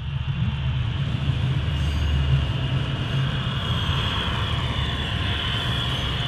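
HO-scale model train, the North Coast Limited streamliner, running along the layout. A steady low hum with an even rushing rolling noise grows louder over the first second and then holds.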